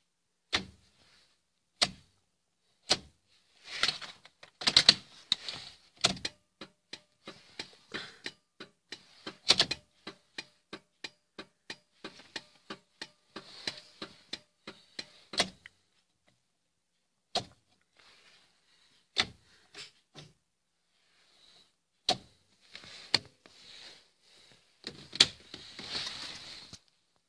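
A series of sharp clicks and knocks, scattered at first, then an evenly spaced run of about three clicks a second through the middle, with a few louder knocks near the end.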